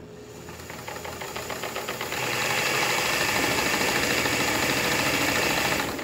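A 1960s White model 6477 sewing machine's motor driving a flap disc on its handwheel shaft as a disc sander, running free with no work against it. It winds up over the first two seconds, then runs steadily.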